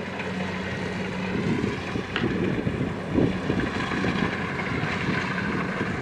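Kubota combine harvester's diesel engine running at a steady working speed as it cuts rice, a constant low hum. Wind buffets the microphone through the middle.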